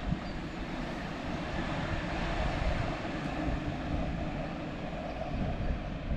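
Stuttgart Stadtbahn light rail train running along the track and drawing away: a steady rolling rumble and hiss with no distinct tones.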